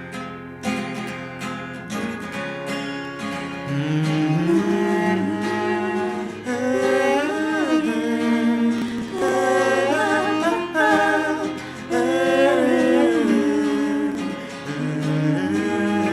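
Acoustic guitar strumming the introduction of a folk song, with a wordless, gliding vocal melody coming in over it about four seconds in.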